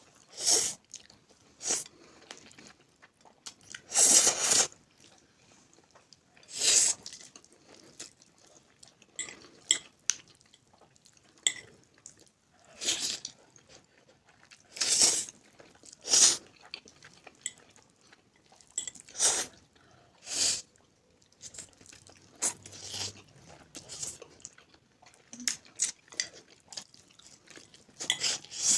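Two people eating instant noodles fast: irregular bursts of loud, close-up chewing and mouth noises a second or several seconds apart.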